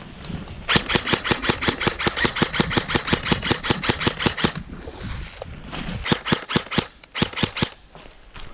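Airsoft gun firing full-auto: a long, rapid string of sharp clacks, about seven a second, for nearly four seconds, then two shorter bursts.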